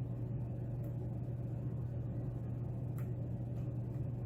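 Steady low hum in the background with two faint clicks of a steel lock pick working the pins inside a Schlage pin-tumbler lock, one just under a second in and one about three seconds in.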